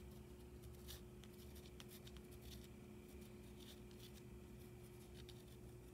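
Faint scratching of a Prismacolor colored pencil stroking over oil pastel on the painting's surface, in short scattered strokes, over a low steady hum.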